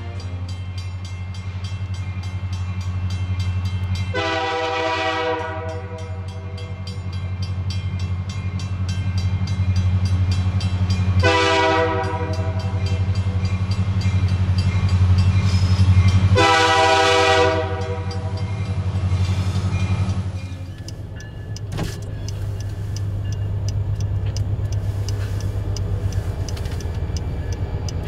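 Freight diesel locomotives (an EMD GP40CU and GP40-2W) running with a steady low drone while the lead unit sounds its air horn for a grade crossing: three long blasts, about 4, 11 and 16 seconds in. Later the drone eases as the locomotives pass, leaving the train's rumble with a faint rapid ticking.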